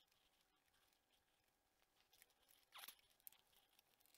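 Near silence, with a few faint rustles and clicks of wires and a connector being handled in a motorcycle's wiring harness. The loudest is a brief faint scrape nearly three seconds in.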